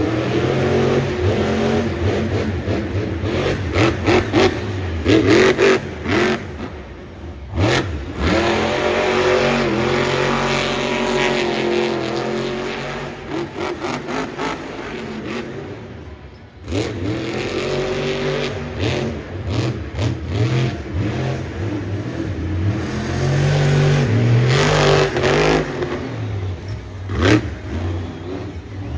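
Supercharged monster truck engine revving hard, its pitch rising and falling as the throttle is worked, with brief drops off the throttle about seven and sixteen seconds in.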